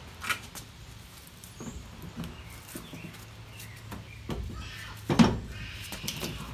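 A wheel with a new Toyo Proxes R888R tire being handled and lifted onto a car's rear hub: light knocks and rubber scuffs, then a louder scraping stretch and one heavy thump about five seconds in as the wheel goes onto the hub.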